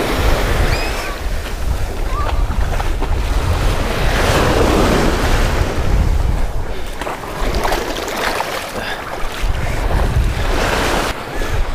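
Small surf breaking and washing up a sandy beach, swelling louder twice, about four seconds in and near the end, with wind rumbling on the microphone.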